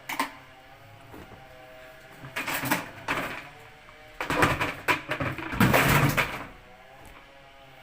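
Clothes being pushed into the drum of a top-load washing machine: a click near the start, then two stretches of rustling and knocking against the drum, the second longer and louder.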